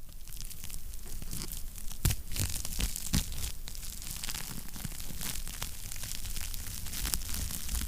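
Wood fire crackling in a fireplace: a dense, irregular run of small snaps and pops, with louder pops about two and three seconds in.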